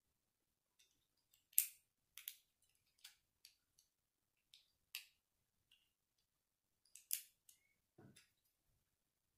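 Small plastic Lego bricks clicking and snapping together as they are pressed on by hand, in scattered sharp clicks with pauses between them, and one duller low knock near the end.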